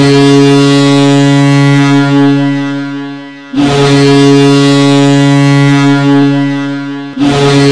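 Växjö Lakers' ice hockey goal horn, a fake (recorded, not a physical air horn) horn sound, the signal of a home-team goal, blowing long, deep, steady blasts. Two blasts of about three and a half seconds each, with a third starting near the end.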